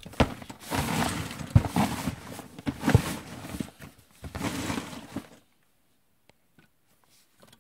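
A cardboard toy box being pulled out of a heap of gold-coloured coins, the coins clattering and sliding with many small clicks while hands rub and tap the box. It stops about five and a half seconds in.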